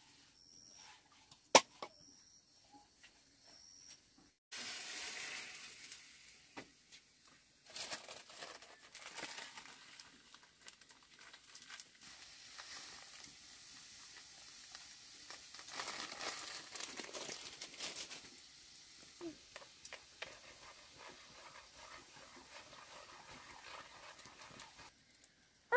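A frying pan sizzling over a wood fire as grains are poured into the hot liquid and fried, with a plastic packet crinkling as it is emptied. The sizzle starts suddenly a few seconds in and swells and fades several times.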